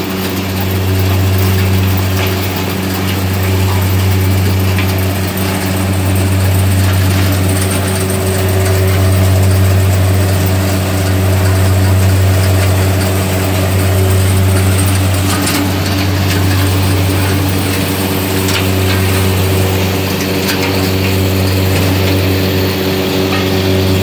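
Commercial bird's eye chili cleaning machine, with its screening and air-separation sections, running: a steady low hum with a few higher steady tones, swelling and easing every few seconds over a noisy rush with scattered light clicks.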